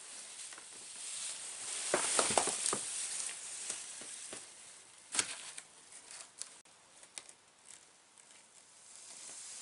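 Plastic pom-pom streamers rustling and crinkling as they are moved about inside a cardboard box, with a run of taps about two seconds in and a sharp click a little after five seconds.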